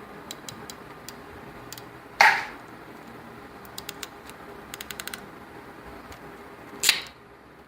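Small connector parts and a hand tool being handled on a workbench: scattered sharp clicks, some in quick runs, with two brief louder rustling sounds, about two seconds in and near the end.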